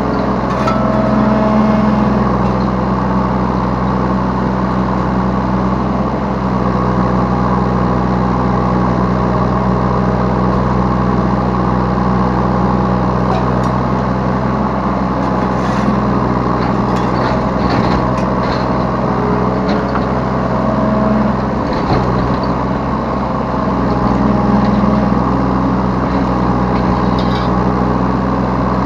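Yanmar B3 Sigma mini excavator's diesel engine running steadily at working speed. Its sound swells slightly a few times, with scattered light knocks.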